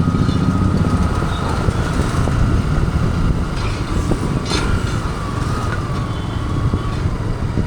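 First-generation Yamaha YZF-R15's single-cylinder engine running with a steady, fast-pulsing rumble. A thin, steady whine sits over it, and there is a brief sharp click about four and a half seconds in.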